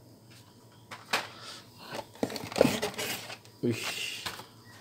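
Hot Wheels blister packs, plastic bubbles on card backs, being handled against a cardboard box, giving a handful of short sharp clicks and knocks with rustling between them.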